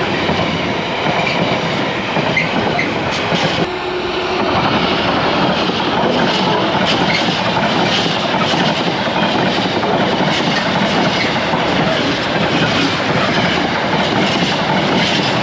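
A train passing close by: a loud, steady rush of wheels and running noise on the rails.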